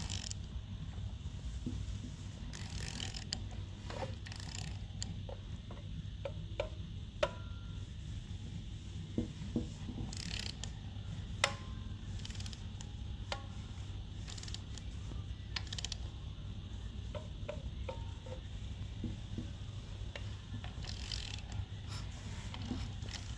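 Irregular creaks, short squeaks and sharp ticks from the rear top end of a 2020 Challenger, over a steady low running rumble. This is the creaking noise the owner is chasing.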